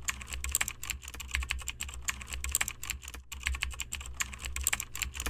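Keyboard typing sound effect: a fast run of key clicks with a brief pause about three seconds in, over a low hum.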